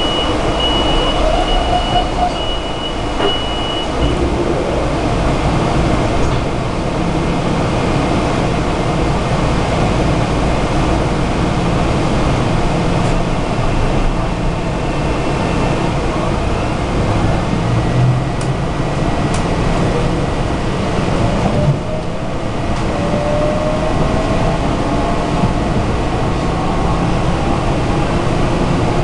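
Inside a Metro-North Harlem Line electric commuter train: a steady rumble and ventilation hum while it stands at a station, then it pulls away. Over the last several seconds a motor whine rises in pitch as the train gathers speed.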